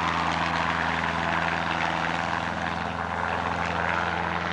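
Engine of a small aircraft running steadily, a constant low hum with no break.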